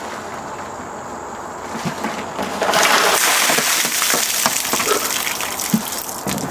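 Water gushing out of an upturned plastic trash can and pouring over a person. It starts suddenly about two and a half seconds in, then trails off, with a sharp knock near the end.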